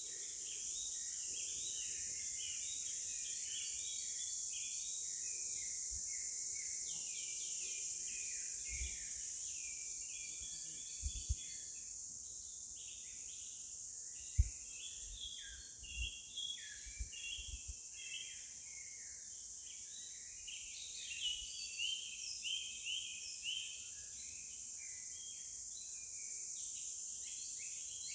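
Forest ambience: many small birds chirping over a steady high-pitched insect drone, with a few low thumps around the middle.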